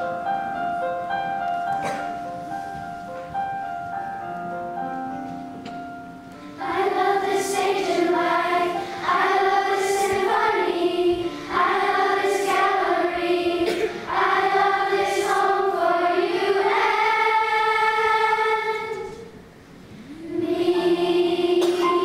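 Children's choir singing with a backing accompaniment: a soft held note over short stepping notes that fade, then louder sung phrases from about six and a half seconds in, with a brief pause near the end before the singing picks up again.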